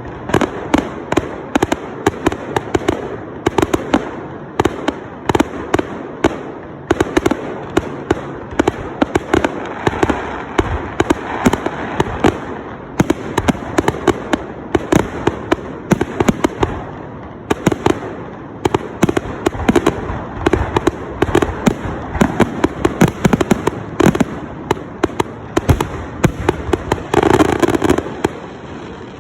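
Fireworks going off in quick succession: a continuous stream of sharp bangs and crackles, with a louder cluster of bursts near the end.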